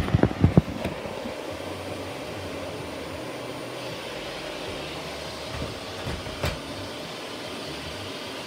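Shark Navigator Lift-Away Professional vacuum cleaner running steadily as it is pushed across a floor. There are a few sharp knocks in the first second and one more later on.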